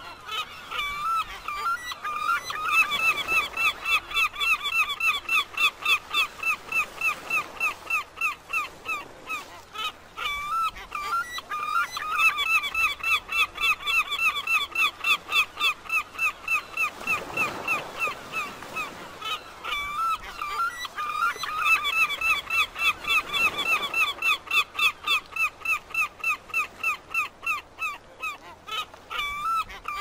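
Gulls calling: a rapid series of harsh, honking calls, about four a second, in bouts of roughly eight seconds separated by short pauses.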